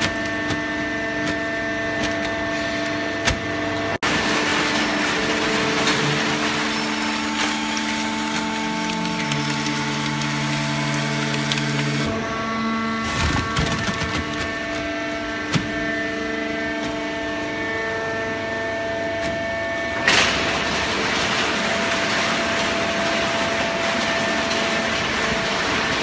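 Hydraulic horizontal waste paper baler running, with a steady machine hum and several held tones that change every few seconds as the press works. There is a short, sharp noise about twenty seconds in.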